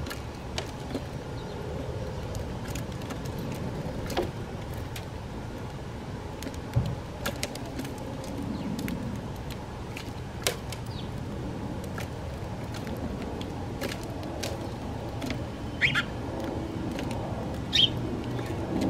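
Steady low rumble of distant road traffic, with scattered sharp ticks of house sparrows' beaks pecking seed on the feeder tray. Two short house sparrow chirps come near the end.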